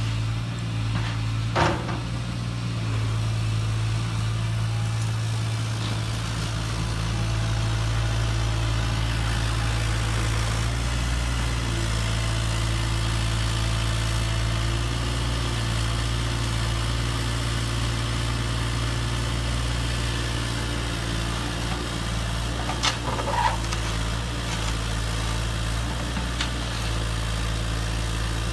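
Steady idling diesel-engine sound from a radio-controlled construction model. Sharp clicks of stones are heard about a second and a half in and again around 23 seconds in.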